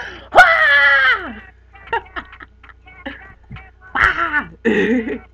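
A young woman's voice making a loud, drawn-out cry that slides down in pitch. About four seconds in come two more short loud vocal outbursts.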